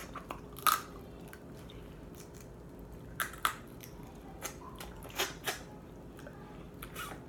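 Crab leg shells cracking and snapping as the meat is picked out and eaten, with chewing: a handful of short sharp crackles spread out, the loudest about a second in.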